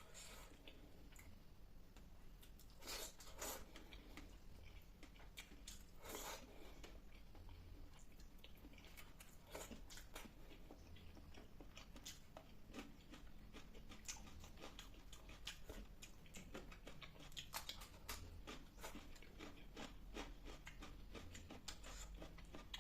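Quiet close-up chewing and wet mouth clicks of a person eating fish curry with rice and salad, with a few brief louder swishes about three and six seconds in.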